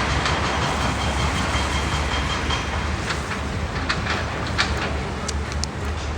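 Steady low rumble of road traffic, with a few light clicks and taps in the second half.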